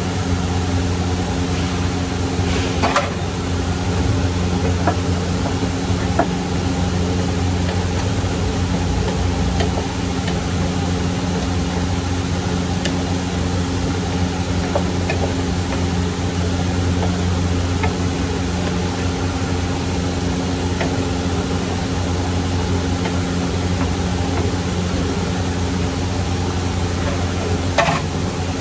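A steady mechanical hum, like a kitchen fan or appliance motor, with a few light clacks of a wooden spatula against a pan of simmering vegetables as they are stirred.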